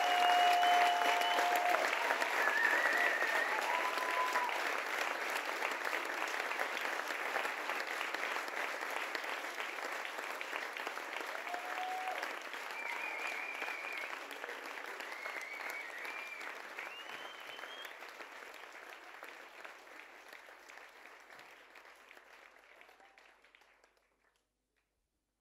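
Audience applauding with scattered cheers, the applause fading out gradually to silence near the end.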